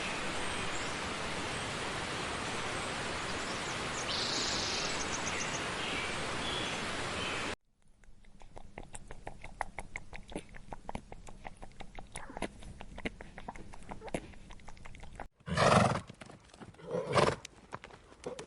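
A steady rushing noise with faint chirps cuts off abruptly and gives way to a run of sharp clicks. Near the end come two loud horse whinnies.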